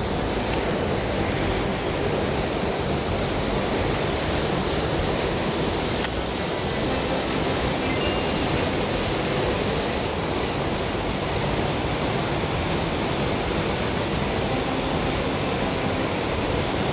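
Steady rushing of water pouring over a concrete river weir, an unbroken even noise.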